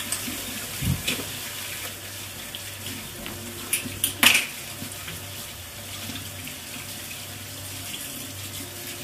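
Kitchen tap running steadily into a sink while hands are washed under it, with a sudden sharp noise about four seconds in.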